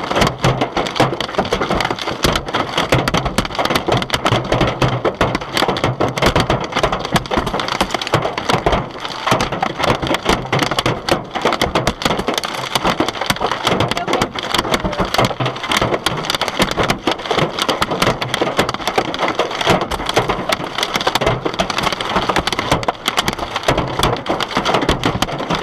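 Loud storm precipitation pelting a hard surface: a dense, continuous clatter of countless small impacts, typical of heavy rain or hail in a severe thunderstorm. It starts abruptly.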